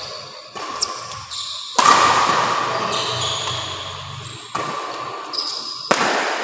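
Badminton doubles rally: about four sharp racket strikes on the shuttlecock ring out in a large echoing hall, the loudest about two seconds in, with sneakers squeaking on the court floor between shots.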